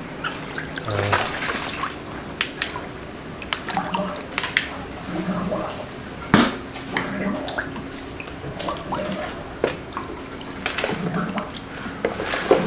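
Floodwater sloshing and splashing in a flooded garage, with scattered drips and small splashes throughout and one sharper impact about six seconds in.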